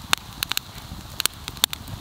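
Wood campfire crackling, with sharp pops coming at irregular intervals.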